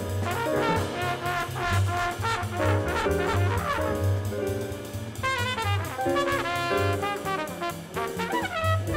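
Jazz quintet recording of trumpet, tenor saxophone, piano, bass and drums playing a fast hard-bop tune. A horn solos in quick runs of notes over chords, bass and cymbals.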